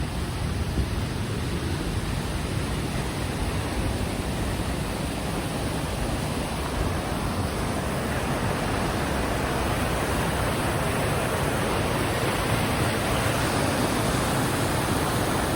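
Steady rush of falling water from a waterfall, growing slightly louder toward the end.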